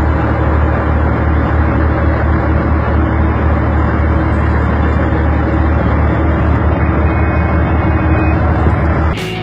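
Heavy diesel engine of quarry machinery running steadily under load, a loud low rumble. It cuts off just before the end as music starts.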